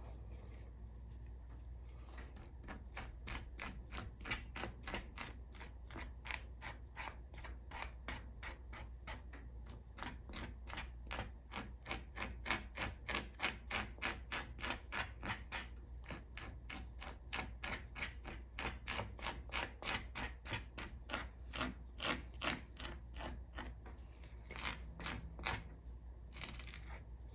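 Plastic pan scraper scraping the fat off the underside of raw chicken skin, in quick repeated strokes of about three to four a second.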